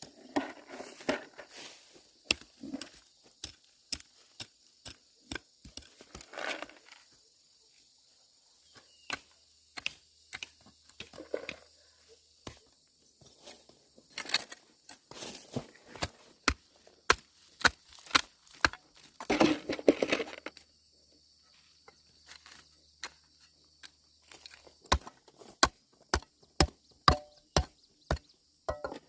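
Repeated sharp chopping strikes in irregular runs, some in quick rhythmic series of about two a second, over a steady high buzz of insects.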